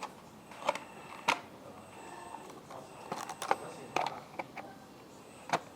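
About half a dozen light clicks and taps of the plastic front cover of a 1/8 scale RC tractor being aligned and latched back into place, spread unevenly with short gaps between them.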